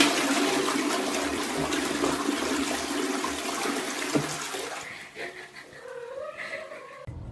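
Toilet flushing: water rushing and swirling down the bowl, loudest at the start and dying away over about five seconds. A cat meows briefly near the end.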